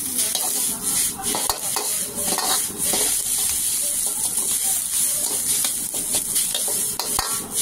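A metal ladle scraping and knocking irregularly against a wok as rice and greens are stir-fried, over a steady high sizzle of the frying.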